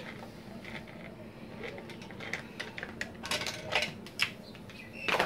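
Scattered light clicks and rattles of hands handling the plastic parts and wiring connector of a Kenwood Chef stand mixer being taken apart. Most of the clicks come about three to four seconds in, over a faint steady hum.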